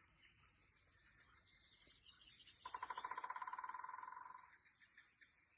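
Faint birds chirping. About three seconds in comes a rapid trill of quick, evenly repeated notes that lasts nearly two seconds and fades away.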